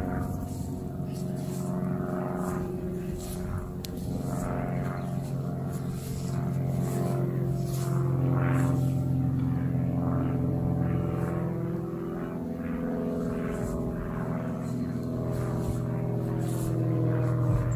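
A steady engine drone: a low hum with several higher pitched tones that slowly drift in pitch, swelling a little about halfway through. Faint brushing and rustling sit over it.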